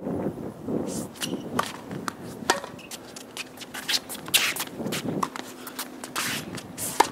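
A tennis rally on a hard court: sneakers scuffing and squeaking as the player shuffles into position, with sharp racket-on-ball hits, the loudest near the end.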